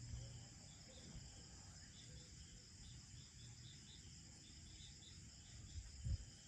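Crickets trilling faintly and steadily in a high band, with a low rumble beneath and two dull bumps about six seconds in.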